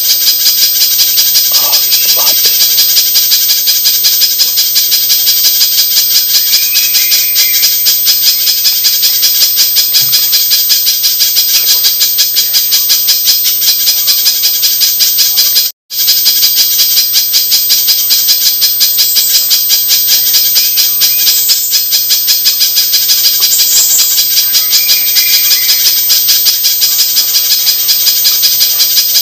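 Spiderhunter lure call: a rapid, unbroken string of sharp, high chips repeated many times a second, cutting out for an instant about halfway before starting again.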